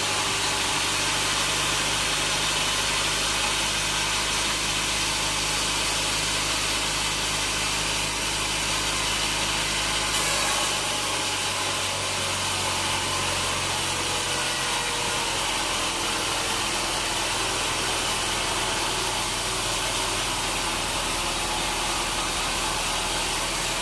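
Sawmill machinery running steadily, a continuous loud mechanical hum and hiss without clear cuts or pauses.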